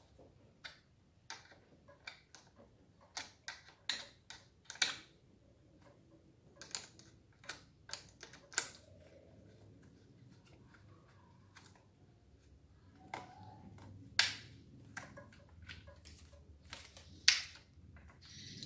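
Small metal spanners clicking and tapping against the carburettor and throttle-cable fitting of a brush cutter engine, in irregular sharp clicks with a few louder clinks.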